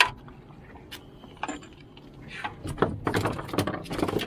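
A freshly landed porgy flapping and slapping on a fiberglass boat deck, with the rod and tackle clattering: a sharp knock at the start, a few light clicks, then a rapid run of slaps and knocks over the last second and a half.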